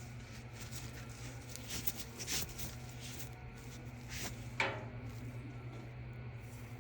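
Light handling of dryer roller parts: a couple of small clicks, about two seconds in and again near the middle, over a steady low hum.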